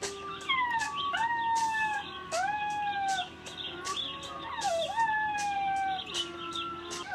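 Puppies howling in a run of short calls that slide up and then fall away, one after another, played back from a video through a device speaker. A faint rhythmic ticking runs behind them.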